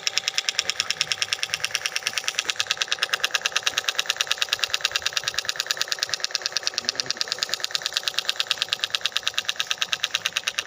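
Plywood miniature Dongfeng diesel engine running, making a steady, rapid mechanical clatter of about ten knocks a second.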